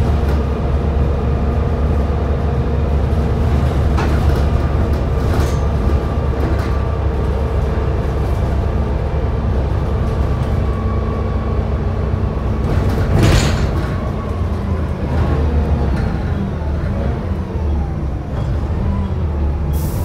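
Volvo B7TL double-decker bus driving along, heard from inside on the upper deck: a steady deep drone from its six-cylinder diesel and driveline, with a high steady whine of the vacuum-cleaner-like kind that bus enthusiasts call a 'hoover'. Body rattles and light knocks come through, with one louder jolt about 13 seconds in.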